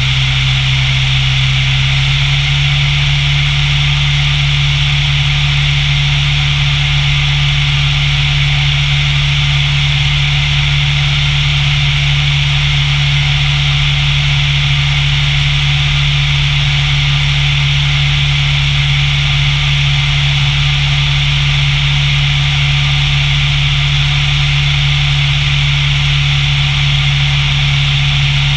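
Single-engine light airplane's piston engine and propeller running steadily in flight: a constant loud drone with an even hiss of rushing air over it.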